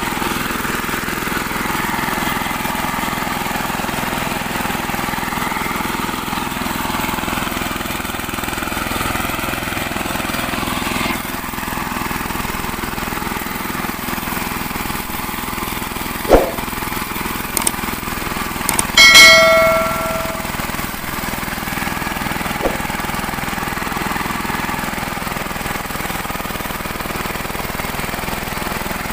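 VST Shakti power tiller's single-cylinder diesel engine running steadily under load as its rotary tines earth up soil between sugarcane rows. A sharp knock just past the middle is followed soon after by a loud metallic ding that rings for about a second.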